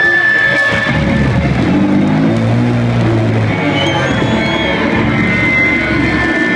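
A loud live noise-rock band performance: distorted electric guitars with steady, held feedback tones over a heavy low bass.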